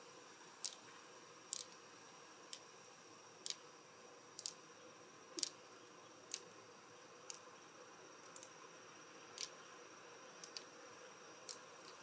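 A series of light, sharp clicks, roughly one a second, over a faint steady high tone.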